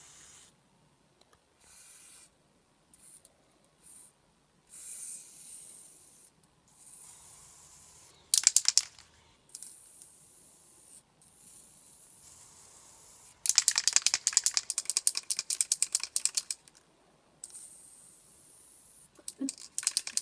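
Aerosol spray-paint cans hissing in a series of short spurts. Twice a can is shaken, its mixing ball rattling quickly: briefly a little before the middle, then for about three seconds past the middle.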